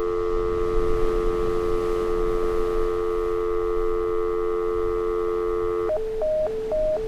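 Telephone dial tone, a steady two-note hum, which switches about six seconds in to a rapid on-off beeping: the fast busy (reorder) tone a line gives when no number is dialled.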